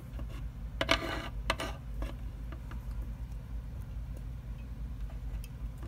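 Light clicks and taps of small plastic toy figurines being handled and set down on a surface, a few sharper ones in the first two seconds and fainter ones after, over a steady low hum.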